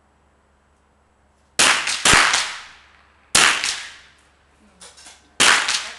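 Four .22 rifle shots: two close together about half a second apart, a third about a second later and a fourth near the end, each a sharp crack with a long echoing tail from the indoor range.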